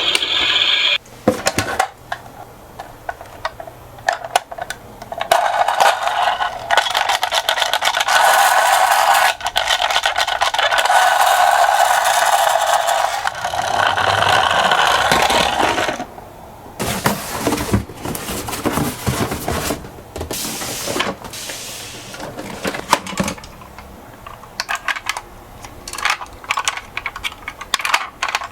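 Die-cast toy cars rolling down a slope track: long stretches of steady rolling rattle, broken by sharp clicks and knocks of the small metal cars against the track.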